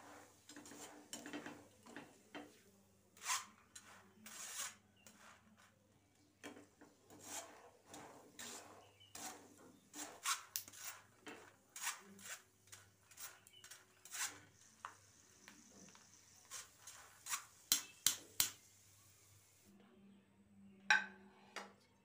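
Metal spoon stirring and tossing peanuts frying in oil inside a steel mesh strainer, with repeated light clicks, taps and scrapes against the mesh and rim over a faint sizzle. Near the end a plate is set down on a stone counter with one sharp clack.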